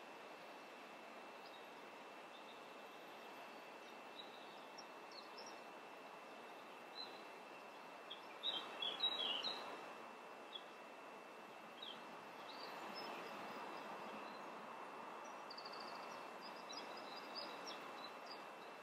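Faint birdsong: small birds chirping in short scattered calls, busiest about nine seconds in, over a steady hiss and a thin, steady high-pitched tone.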